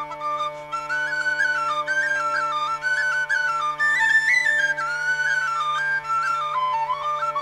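Irish traditional music: a high, quick melody that steps rapidly from note to note over a steady low drone.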